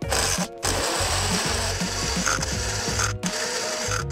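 Electric blender motor running as it blends a drink, a dense whirring noise that breaks off briefly twice.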